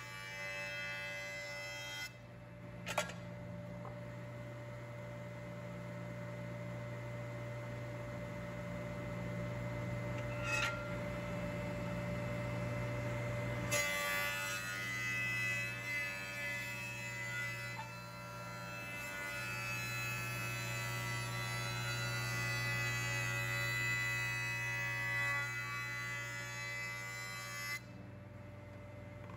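Jointer running as a board is fed across its cutterhead to flatten one face: a steady motor hum and whine with the hiss of the cut, changing abruptly a couple of times.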